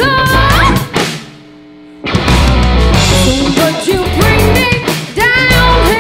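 Live rock band: a woman singing over drum kit and guitar. About a second in, the band stops short for about a second and then comes back in together.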